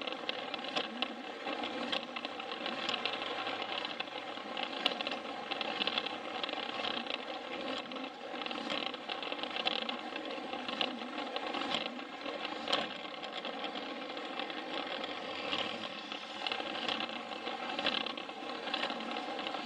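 Takara Tomy Plarail battery-powered toy train running along its plastic track: a steady small-motor and gear whir, with a sharp click now and then.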